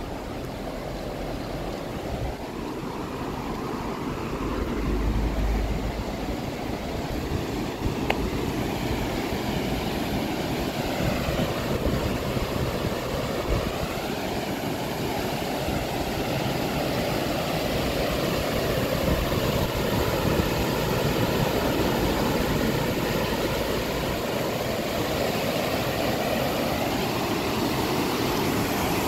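Road traffic: the continuous rushing noise of passing vehicles, growing a little louder over the first few seconds.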